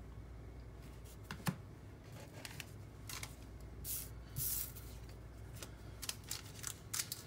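Faint rustling and light taps of cardboard baseball cards being handled and picked up off a stone countertop. There are several short scraping rustles, the loudest about a second and a half in and around three to four and a half seconds in.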